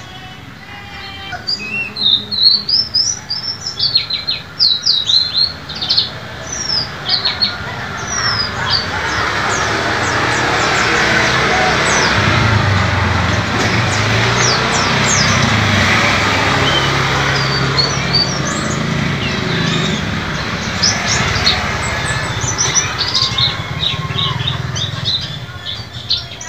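White-eye (pleci) singing in quick runs of short, high chirps, thickest in the opening seconds and again near the end. Through the middle stretch a louder rushing noise with a low rumble swells up and fades, and the chirps there are sparser.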